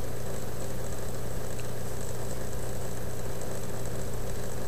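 A steady mechanical hum that does not change in pitch or level.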